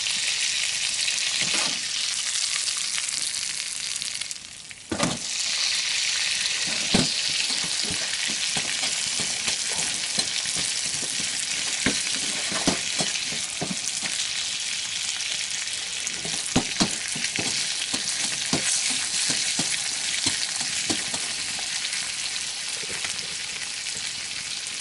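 Bacon sizzling as it fries in a pan, a steady hiss with many scattered pops and spatters of grease. The sizzle drops away briefly about four and a half seconds in, then resumes.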